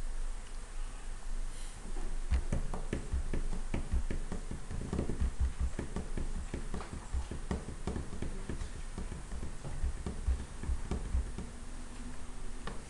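A quick, irregular run of small taps and clicks with dull low thumps, starting about two seconds in and thinning out near the end.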